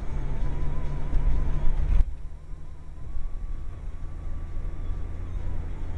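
A car driving, its engine and road noise heard from inside the cabin as a steady low rumble; about two seconds in the higher part of the noise drops away suddenly, leaving mostly the low rumble.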